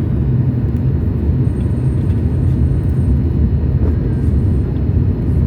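Steady low rumble of cabin noise aboard a Boeing 737 MAX 8 in flight: its CFM LEAP-1B engines and the airflow over the fuselage.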